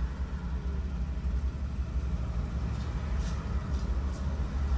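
A Suzuki car's engine idling with the car stopped, a steady low rumble heard from inside the cabin.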